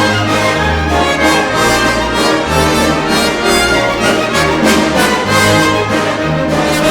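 Orchestral music led by brass, with a bass line moving in steady steps.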